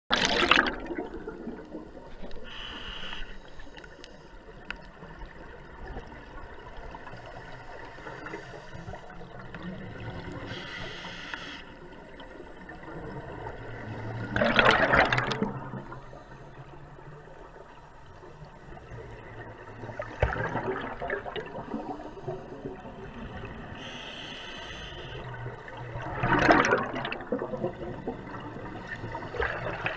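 Scuba diver's regulator breathing underwater: soft hisses of inhalation alternating with loud bursts of exhaled bubbles, the loudest right at the start, about halfway through and near the end.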